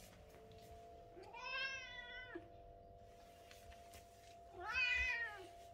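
A British Shorthair cat meowing twice: two drawn-out meows about three seconds apart, each rising then falling in pitch, the second louder.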